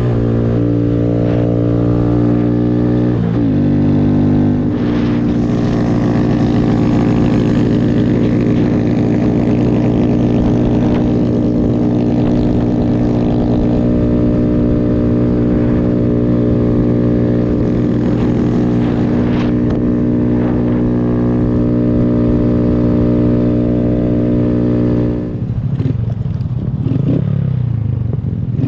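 Honda Grom's small single-cylinder engine running under way at steady revs. The revs dip briefly about three seconds in and pick back up about five seconds in. Near the end the revs fall off as the throttle closes, then rise again.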